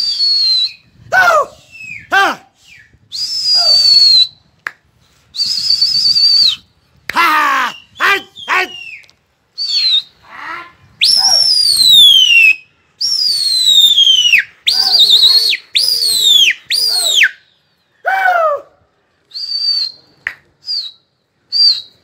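A person whistling loudly and repeatedly to a flock of flying pigeons: piercing whistles, some held and many sliding down in pitch, with a few short shouted calls in between. This is the calling a pigeon flyer uses to work his flock overhead.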